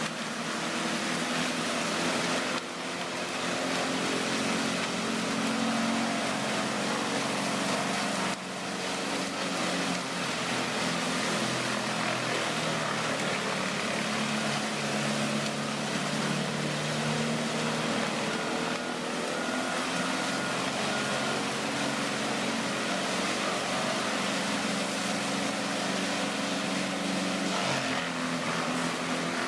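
Vermeer WC2300XL whole tree chipper running: a big engine working steadily under a broad mechanical din from the chipping, with brief dips in level about two and a half and eight seconds in.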